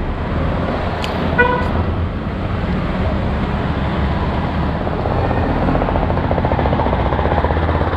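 Steady urban road traffic noise from passing cars and motorbikes, with a brief car horn toot about a second and a half in.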